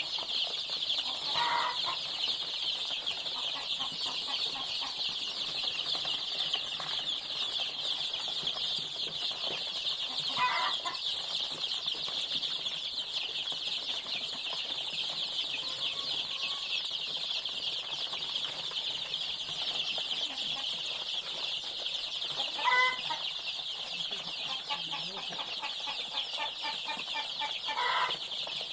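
A crowd of young chicks peeping continuously in a high, dense chorus, with a few louder, lower calls from single birds standing out about four times.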